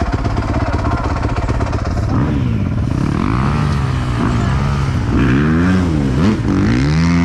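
Dirt bike engine running steadily, then revved up and down several times from about two seconds in, and held at higher revs near the end.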